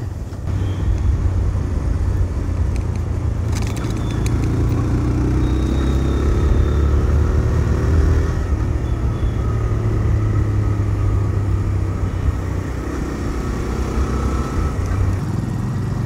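TVS Raider 125's single-cylinder engine running steadily while the motorcycle is ridden, under heavy wind rumble on the microphone.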